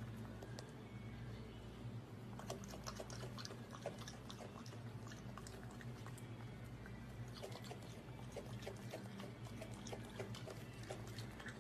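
Raccoon chewing grapes: faint, irregular wet clicks and smacks, over a steady low hum.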